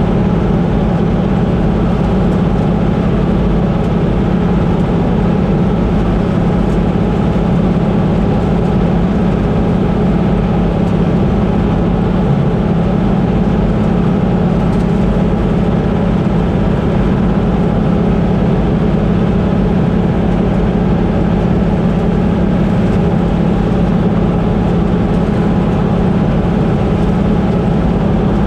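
Combine harvester running steadily at work, a constant loud engine-and-machinery drone with a strong low hum.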